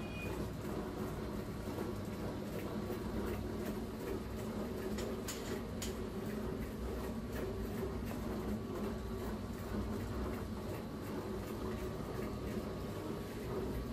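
Electric dough-sheeting machine running: a steady motor hum from its rollers, with light ticks and clatter as dough is fed through.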